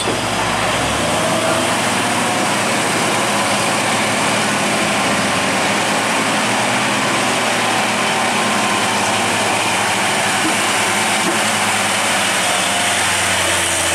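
Hino three-axle truck's diesel engine running under load as it climbs a steep bend: a loud, steady mechanical noise with a constant low hum beneath it.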